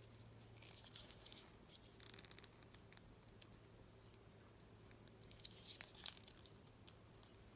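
Faint handling noise of a new fidget cube being worked in the hands: scattered small clicks and light rustling, in two brief clusters, as a part that should come off is picked at.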